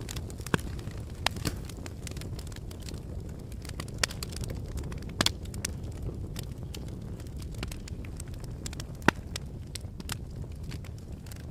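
Volcanic eruption footage: a steady low rumble with irregular sharp cracks and snaps scattered through it, the loudest about nine seconds in, like the crackling of lava and rock.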